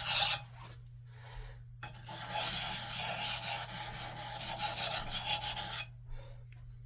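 Sandpaper rubbing on the steel of a Gränsfors Bruks axe head to work out a small chip in the edge: a brief stretch of gritty rasping at the start, a pause, then about four seconds of continuous rubbing that stops near the end.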